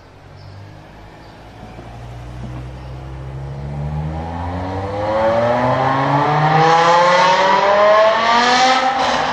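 BMW M5 E60's S85 5.0-litre naturally aspirated V10 accelerating hard, its engine note climbing steadily in pitch and growing louder, with a slight drop in pitch near the end.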